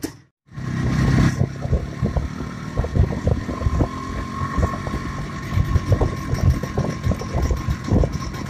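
IZh Planeta 5 motorcycle's single-cylinder two-stroke engine running under way, with irregular low thumps throughout, after a brief gap just after the start.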